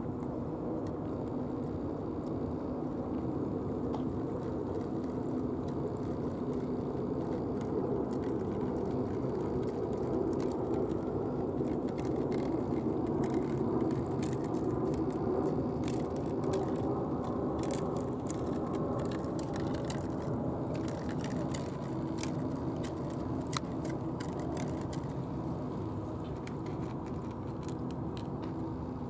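Cats crunching dry kibble at close range: many small crisp clicks, starting several seconds in and thinning out near the end, over a steady low rumble.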